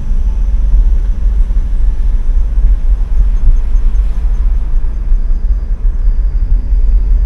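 A car driving along a road, with a steady low rumble of engine and road noise.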